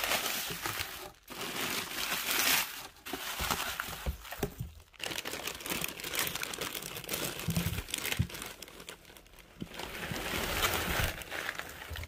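Bubble wrap and plastic packing crinkling and rustling in irregular spells as hands dig through it and pull it back, with short pauses and a few dull thumps.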